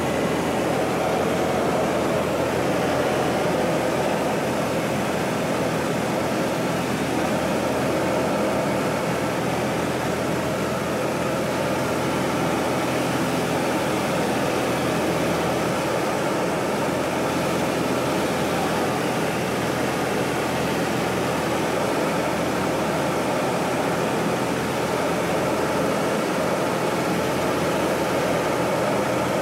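Steady drone of a Pitts aerobatic biplane's piston engine and propeller in flight, mixed with rushing wind noise, heard from the cockpit.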